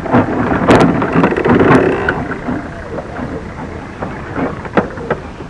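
Rumbling and knocking of a bicycle-mounted man-powered aircraft rolling over uneven garden ground, loudest in the first two seconds and then dying down.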